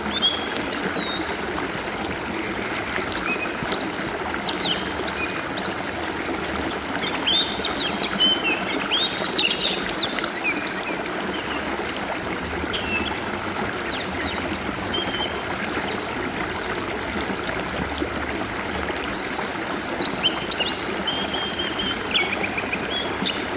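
Water flowing steadily in a stream, with an Oriental magpie-robin singing over it in quick, varied whistles and chirps. A brief harsh, scratchy sound comes about nineteen seconds in.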